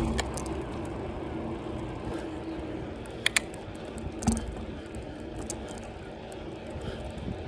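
Bicycle rolling along a tarmac street: steady tyre and wind noise, with two sharp clicks about three seconds in and a knock a second later.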